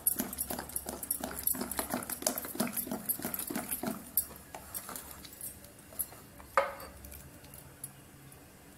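Steel spoon stirring thick lentil and semolina batter in a glass bowl, with quick clicks as it knocks against the glass, slowing and quieter after about four seconds.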